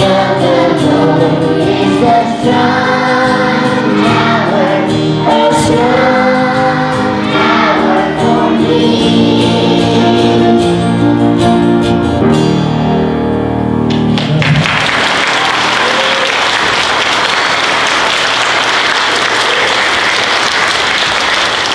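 A young girl singing a worship song into a microphone, accompanied by piano and guitar. The song ends about two-thirds of the way through, and steady applause follows.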